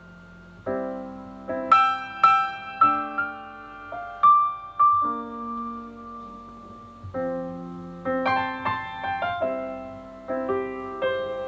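Piano playing a slow song intro: single notes and chords struck and left to ring, a few at a time.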